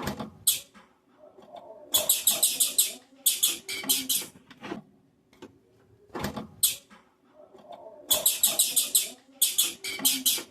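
Female blue-black grassquit (tiziu) giving high-pitched chips in rapid runs of about eight notes a second, four runs with a few single notes between, the male-like calling known as 'macheando'.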